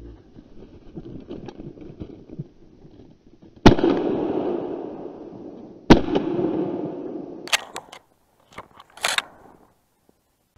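Two shots from an MP-155 semi-automatic shotgun about two seconds apart, each followed by a long echo that slowly dies away. Before them, rustling and crunching in snow; near the end, a few sharp clicks and a brief scuffle.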